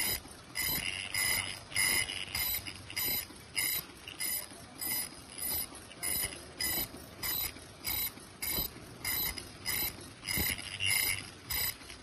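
Automatic KF94 fish-shaped mask making machine running, cycling in an even rhythm a little under two strokes a second. Each stroke brings a short high-pitched ringing tone over a steady mechanical clatter.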